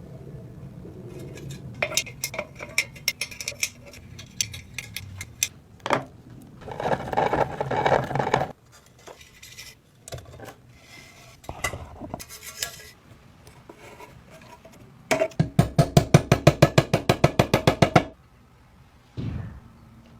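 Hand-tool work noises: scattered clinks and taps with a stretch of scraping, then a fast, even run of sharp strikes, about six a second, lasting about three seconds.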